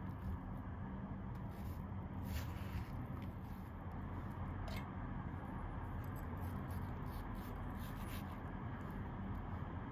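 Kitchen knife cutting through watermelon and touching down on a wooden cutting board: soft slicing and scraping with a few short sharp strokes, over a low steady hum.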